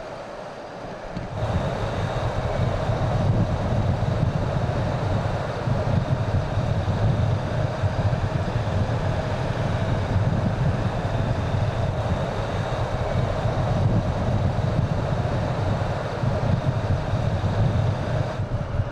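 Mercedes-Benz Citaro city bus driving along the road: a steady low rumble of engine and tyres with wind noise, stepping up in level about a second in.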